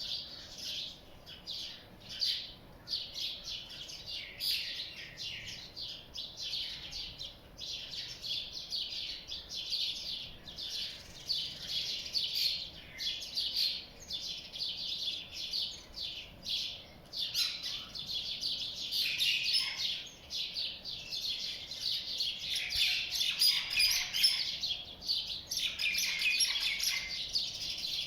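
Small birds chirping continuously, many quick overlapping chirps, getting somewhat louder near the end.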